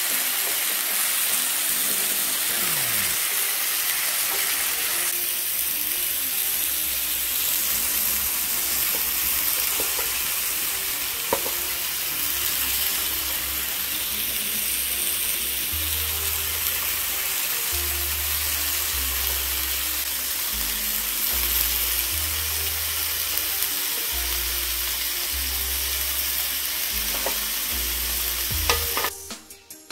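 Marinated chicken breast and asparagus spears sizzling on a hot electric contact griddle. It is a steady frying hiss as the chicken's juices cook off on the plates. A few light clicks of metal tongs set spears down, soft background music with a low bassline comes in about halfway, and the sound cuts out sharply near the end.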